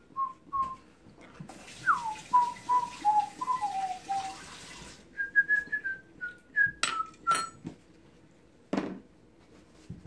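A person whistling a tune in short clear notes, dipping lower in pitch in the middle and climbing again after. A steady hiss runs under the whistling for about three seconds and cuts off sharply, and a couple of sharp clicks and a dull knock come in the second half.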